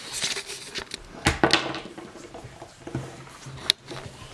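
Plastic toy action figures knocking and clattering against a wooden tabletop as they are handled, with two knocks close together about a second and a half in and a sharp click near the end.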